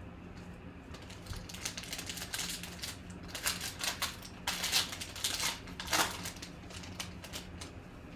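Trading cards being handled and flipped through: a quick run of crisp clicks and slides, card against card, over a steady low electrical hum.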